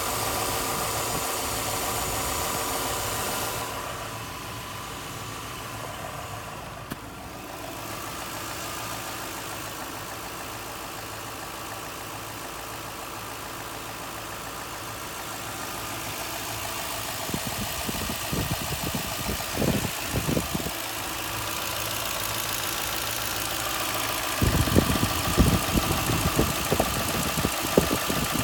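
Toyota 2UZ-FE 4.7 V8 petrol engine idling warm, with irregular knocking from the front of the engine. The knocking grows louder and more frequent near the end. The owner attributes the knock to a new timing-belt tensioner pulley; it appears 10–15 minutes after the engine is started.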